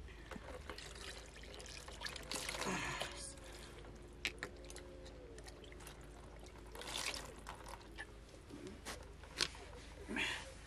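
Water poured from an aluminium kettle over a plucked chicken and splashing into a plastic basin as the bird is rinsed by hand. It comes in several short pours, with a few sharp clicks between them.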